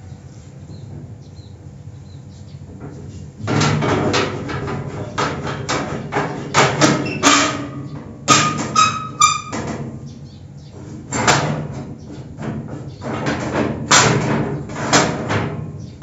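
Rusty iron-bar door creaking and squeaking as it is swung open. A few seconds in, a string of loud, uneven scraping creaks begins, some drawn out into short squeals, and it carries on almost to the end.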